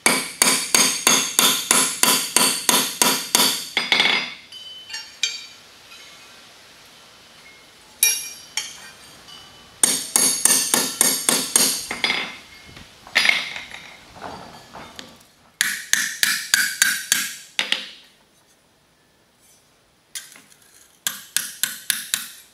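Hammer striking a mild-steel spatula on a steel anvil in quick runs of about four blows a second, each blow ringing bright and metallic. The runs are broken by short pauses and a few single strikes.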